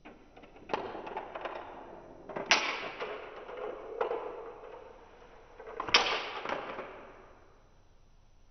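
Steel marbles rolling along a GraviTrax plastic marble track, a rumbling run with two sharp clacks of balls striking track parts, about two and a half seconds and six seconds in, plus a smaller click in between. The rolling fades out about a second before the end.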